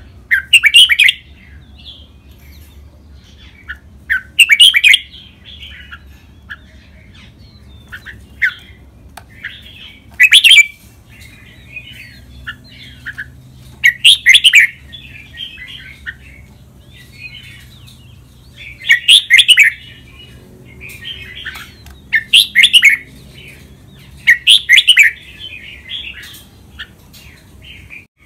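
Red-whiskered bulbul singing: about eight loud, short song phrases a few seconds apart, with softer chattering notes between them.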